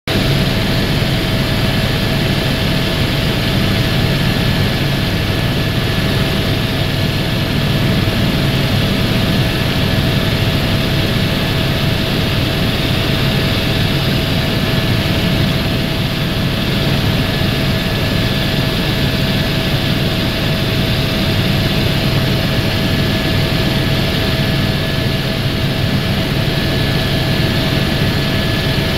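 Helicopter cabin noise in steady flight: a loud, even drone with two steady whining tones over it, heard from inside the cabin.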